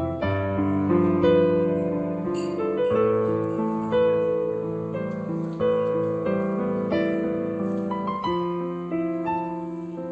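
Background piano music: slow notes and chords struck about once a second, each ringing and fading away.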